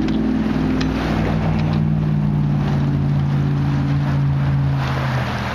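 A motor engine running with a steady hum whose pitch slowly sinks, dying away near the end, over wind noise on the microphone. A few light clicks sound in the first two seconds.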